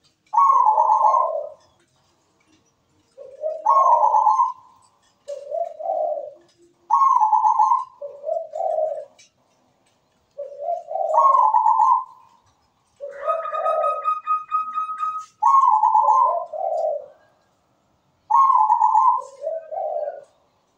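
Zebra dove (perkutut) cooing: its rolling, pulsing coo song delivered in short phrases, repeated about every two to three seconds.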